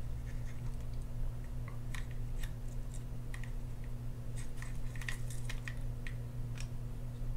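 Light, scattered clicks and ticks of small metal reel parts knocking together as the side plate of an Abu Garcia Ambassadeur 6500CL baitcasting reel is lined up and fitted onto the frame, more of them around the middle. A steady low hum runs underneath.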